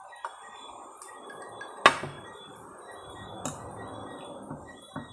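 A drink being poured for several seconds, with a sharp clink about two seconds in.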